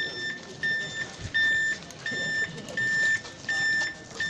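Electronic beeper on a homemade model missile-carrier truck sounding a regular run of short, high, single-pitch beeps, about six of them, like a reversing alarm.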